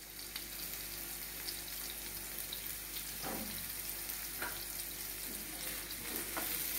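Thinly sliced onions frying in hot oil in a pan, a steady sizzle.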